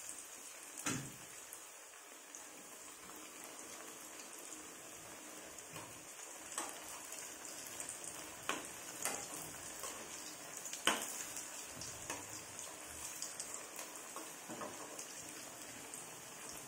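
Kappa vada (tapioca fritters) deep-frying in hot oil in a steel kadai: a steady sizzling hiss with scattered sharp pops and clicks, the loudest about eleven seconds in.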